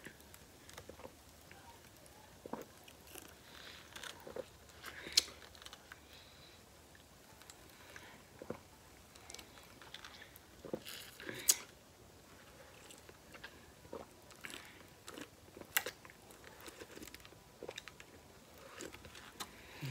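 A person biting and chewing a Hot Pocket: faint, scattered crunches and mouth clicks, with sharper crunches about five and eleven seconds in.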